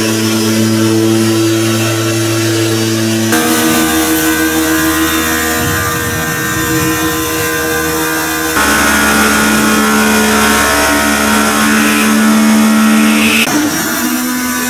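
Pressure washer running, spraying diluted sodium hypochlorite disinfectant onto the walls of a water cistern: a steady motor hum under the hiss of the spray. The sound jumps abruptly a few times.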